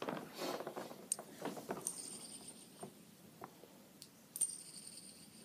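Metal Captain America shield fidget spinner handled and flicked between the fingers: light clicks and small metallic clinks, with a faint high steady ring that starts about two seconds in and again near the end.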